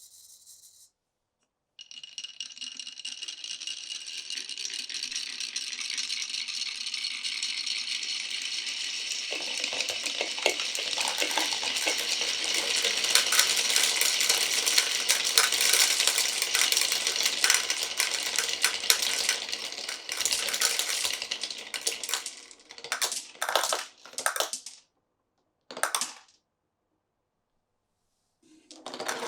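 Many glass marbles rolling and clattering along marble-run track, a dense continuous rattle of small clicks that builds over about twenty seconds. It then breaks up into a few short bursts of rattling near the end.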